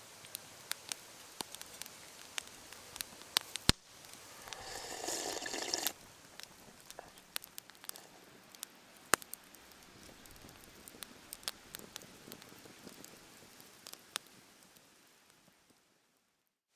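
Wood campfire crackling, with many small snaps and a few sharper pops. About four seconds in, a hiss swells for roughly two seconds and stops abruptly, then everything fades away near the end.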